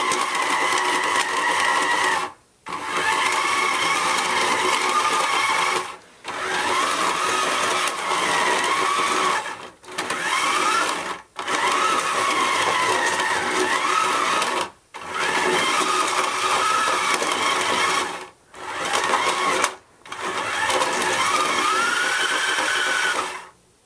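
Battery-powered motor of a toy monster truck wrestling ring whirring as the red fight button is held, with plastic monster trucks rattling and jostling on the ring. It runs in bursts of a few seconds, stopping briefly about seven times as the button is released, and its pitch wavers as the load changes.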